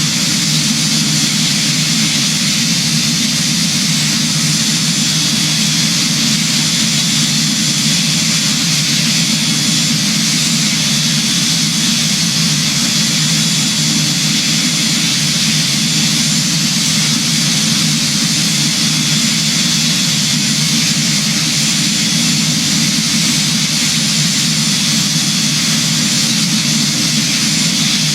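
Jet aircraft engines and airflow running at a steady level, a constant noise with thin, steady high-pitched whining tones through it.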